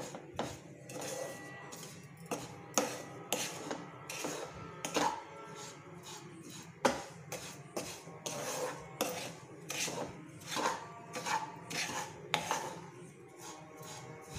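Wooden spatula scraping and stirring dry grated coconut and roasted semolina in a nonstick pan, in repeated strokes of about two a second, with a couple of sharper knocks of the spatula against the pan. The mixture is being dry-roasted to drive off the coconut's moisture.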